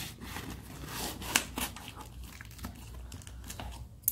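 Scissors cutting along the plastic packing tape on a cardboard shipping box: an irregular run of crinkly scraping and snipping, sharpest about a second and a half in.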